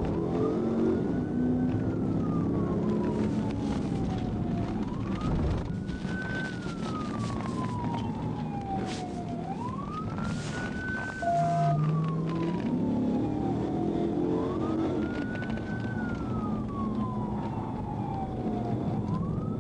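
Police car siren on wail, rising quickly and falling slowly about every five seconds, over the patrol car's engine and tyre noise. About two-thirds of the way through, the engine note climbs as the car speeds up.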